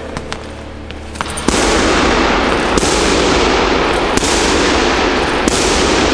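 Gloved punches landing on a heavy punching bag, a sharp hit about every second and a half, over a loud continuous crackling noise that starts about one and a half seconds in.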